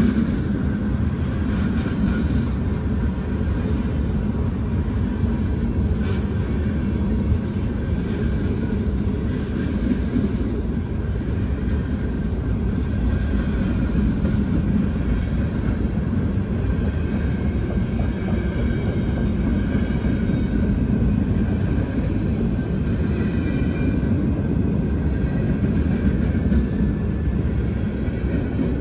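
CSX freight train's cars rolling past in a steady low rumble, with faint high squeals coming and going.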